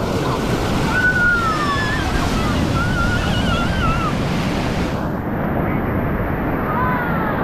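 Ocean surf with wind buffeting the microphone, a loud, steady rush. Faint high gliding calls sound over it in the first half and again near the end.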